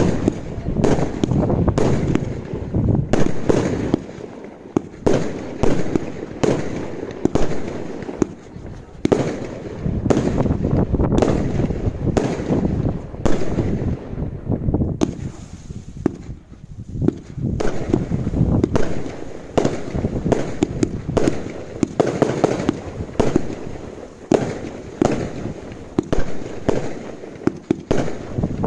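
Cat 2 and Cat 3 consumer fireworks going off in a rapid barrage of sharp bangs, with a short lull about halfway through.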